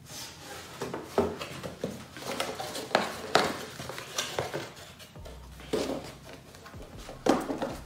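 Handling noises: irregular knocks, clicks and rustles as small sneakers are turned over, set down and picked up.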